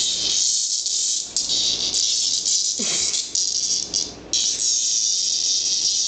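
Cicada buzzing loudly indoors: a dense, high-pitched rasping drone that breaks off briefly about four seconds in, then starts again.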